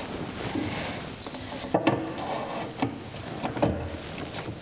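A metal combination square and cabinet hinge handled against a wooden cabinet door while the hinge is squared up in its cup: light rubbing with a few sharp clicks and knocks about a second apart.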